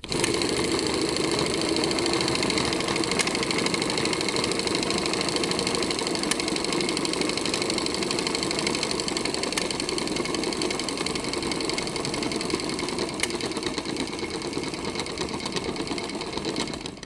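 Old film projector running: a steady, rapid mechanical clatter that fades out at the end.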